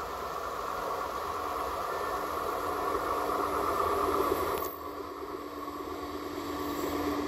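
A DR1AC diesel multiple unit approaching, its diesel engine running with a steady hum under a haze of running noise. The sound grows louder as it nears, drops suddenly about two-thirds of the way in, then builds again.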